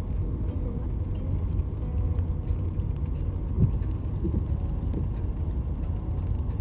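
Steady low rumble of a car driving, road and engine noise, with one brief knock a little past halfway.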